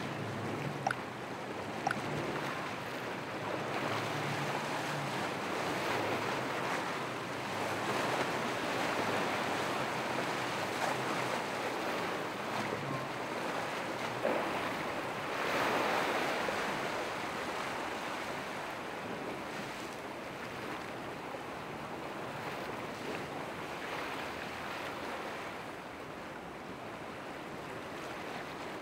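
Waves surging and breaking in a rough inlet, with wind on the microphone; a louder surge comes about halfway through. A low boat engine hum sits under the water noise in the first half.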